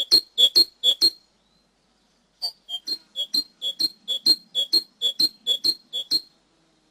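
Cinereous tit (glatik wingko, gelatik batu) singing a clear, repeated two-note phrase, a lower note then a higher one, about two phrases a second. The song breaks off about a second in and starts again a little over a second later, running until near the end.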